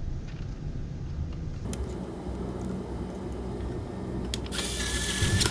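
A steady low rumble runs underneath. Near the end comes a loud, brief whir with a steady high tone: a power screwdriver driving a module screw back in.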